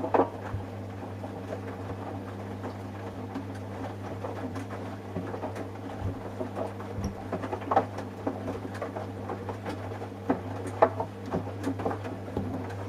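Samsung washing machine running with a steady motor hum while a pair of fabric trainers tumbles in the drum, thumping and knocking against it at irregular intervals. The knocking comes from the trainers being washed loose, not in a laundry bag or pillowcase.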